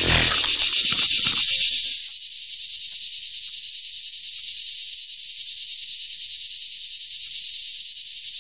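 Locust swarm sound effect: a dense, high chirring of many insects. It is loudest in the first two seconds, where some lower sounds mix in, then settles to a steadier, quieter chirring.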